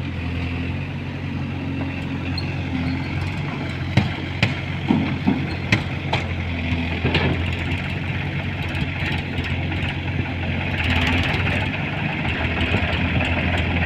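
Heavy diesel engine running steadily with a low hum, with a few sharp knocks or clanks between about four and seven seconds in.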